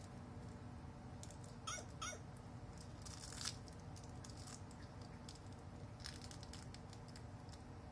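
Two short, high meows from a cat, about a third of a second apart, about two seconds in, in a quiet room; a brief rustle follows about a second later.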